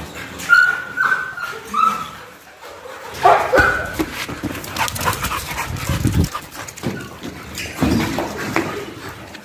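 Dogs yipping and barking in play, with several short high yips in the first two seconds and more barks a few seconds later.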